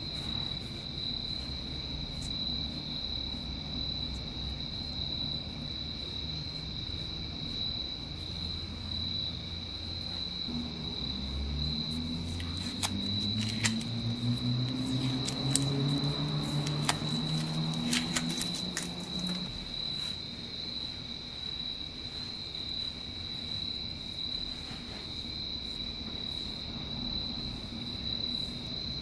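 Crickets chirring steadily at a high pitch over a low background drone, with a few rising low tones and a run of light clicks about halfway through.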